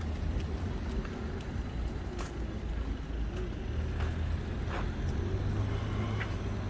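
City street traffic: the steady low rumble of passing cars, with a few faint clicks scattered through it.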